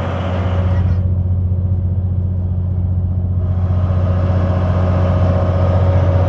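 Passenger tour boat's engine running with a steady low hum, heard on board as the boat moves out over the lake.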